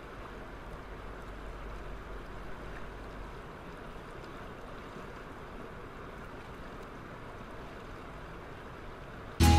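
Shallow water of the Arkansas River flowing over sand and rocks: a steady, even rush. Music starts abruptly at the very end.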